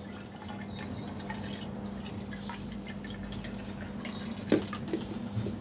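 Methylated spirits being poured into a motorcycle front fork tube to flush out the old fork oil: a steady trickle of liquid, with one sharper knock about four and a half seconds in.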